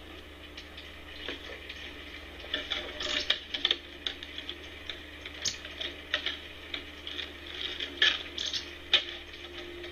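Irregular clicking, tapping and rustling, like small objects and plastic being handled, with a few sharper clicks around 3, 5.5, 8 and 9 seconds in. A steady low hum lies underneath.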